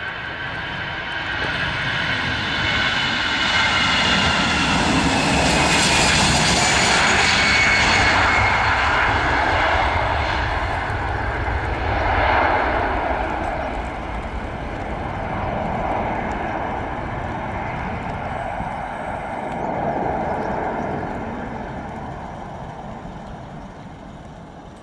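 Airbus A320 twin-jet engines at takeoff thrust as the airliner rolls past, lifts off and climbs away. A high whine falls in pitch over the first several seconds while the rumble builds to its loudest about a third of the way in. It then swells a couple more times and fades steadily toward the end.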